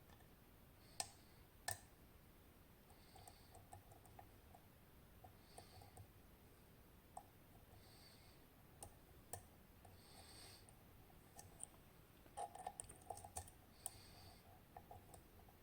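Faint, irregular metallic clicks and ticks of a lock pick working the pins of a TESA T80 dimple-key cylinder under tension, as the binding pin is lifted. Two louder clicks come about a second in, and a denser run of clicks comes around twelve to fourteen seconds in.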